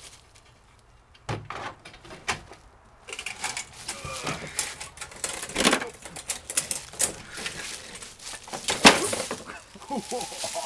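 Rattling, scraping and knocking as a walk-behind lawnmower is dragged out of a cluttered shed. A few isolated clicks, then from about three seconds in a busy run of clatter, with one loud knock near the end.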